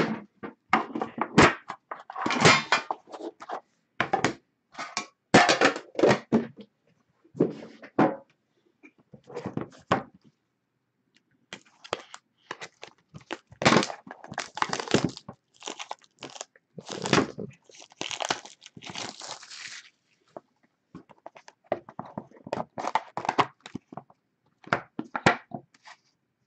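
Hands unpacking a box of hockey trading cards: irregular knocks and scrapes of the tin box and its lid, with bursts of crinkling and tearing wrapping, as the black inner box is slid out and opened.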